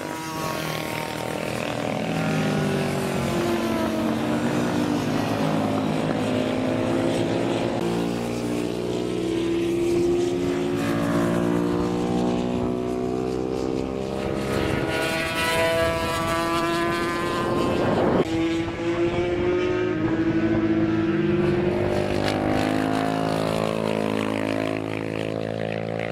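Classic racing motorcycles going past at speed, their engine notes rising and falling as they come by and change gear. The loudest moment is a close pass about three quarters of the way through.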